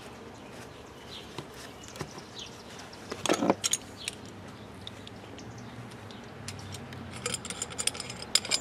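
Light metallic clinks and taps from small hose hardware and tools being handled: a short cluster about three seconds in, then a run of small ringing clicks near the end.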